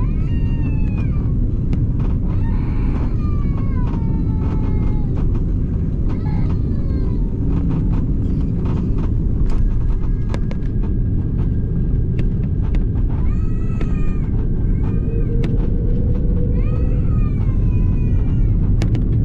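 Airliner cabin noise, a loud steady low rumble. Over it, a small child's high voice cries out again and again in short falling wails.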